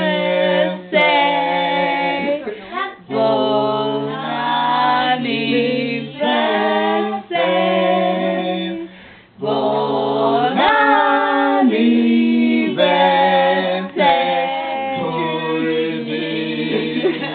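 A man singing unaccompanied into a microphone: long, held notes in phrases, with short breaks for breath.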